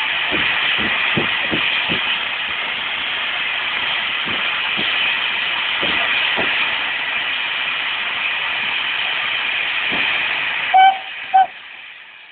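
Small tank steam locomotive standing with steam hissing steadily, then two short toots on its whistle near the end, after which the hiss dies away.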